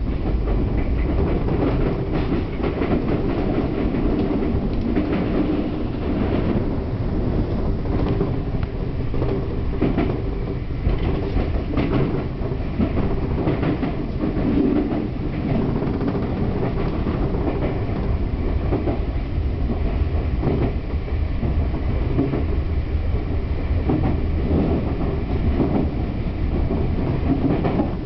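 Sotetsu Line electric train running over points and rail joints, heard from inside the front car: a steady rumble with irregular sharp wheel clicks.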